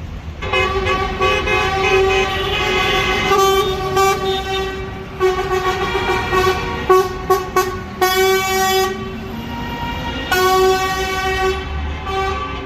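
A vehicle horn honking in protest against the ULEZ scheme: a long held blast of about five seconds, then more blasts broken by a quick run of short toots.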